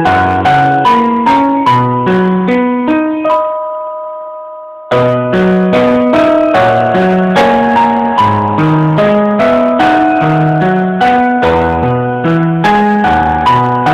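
Piano music: a steady run of evenly paced notes that stops on a held chord about three seconds in, lets it fade, then starts again abruptly about five seconds in.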